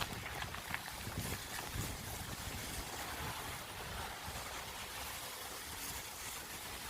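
Steady rushing noise of riding a bicycle through snow on a street: wind buffeting the microphone with a low rumble, mixed with the rolling of the bike on the wet, snowy road.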